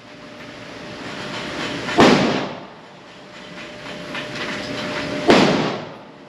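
Two gunshots about three seconds apart, each sharp crack followed by a short echoing tail, over a steady background noise that swells between them.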